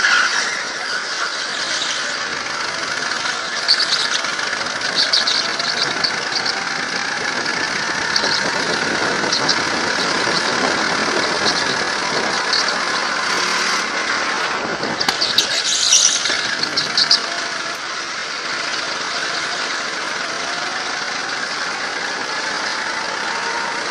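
Go-kart engine running and revving up and down through corners, heard from on board the kart. Its tyres squeal in short bursts, most strongly about two-thirds of the way through.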